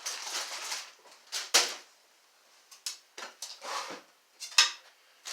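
Handling noise: a run of short rustles and sharp clicks or knocks, the two loudest about one and a half seconds in and again near the end.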